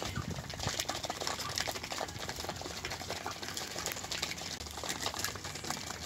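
Ducks and chickens pecking and dabbling at crushed wheat and poultry feed in shallow dishes: a fast, irregular clatter of small clicks and taps.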